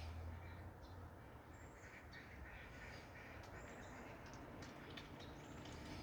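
A domestic duck dabbling in a muddy puddle: faint, rapid splashy clicks of its bill working the water, with soft quacks.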